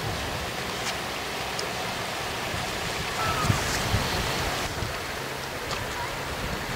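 Sea waves washing on the shore, a steady continuous rush.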